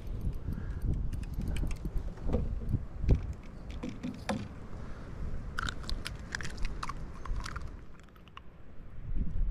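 Wind buffeting the microphone in an uneven low rumble, with scattered clicks and rattles of the rod, reel and line being handled as a hooked redfish is lifted from the water.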